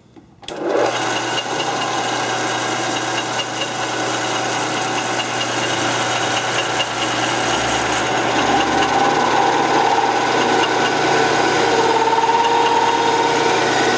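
Metal lathe starting up about half a second in and then running with a steady hum while its tool turns down the outside diameter of a metal workpiece held on a mandrel in the chuck.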